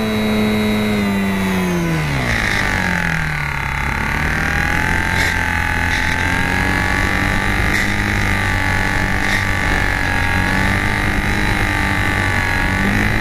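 Electric motor and propeller of a HobbyZone Champ micro RC plane whining, recorded by a keychain camera on board, over a constant rush of air. The pitch drops over the first few seconds as the motor slows, then holds fairly steady with a slight wavering.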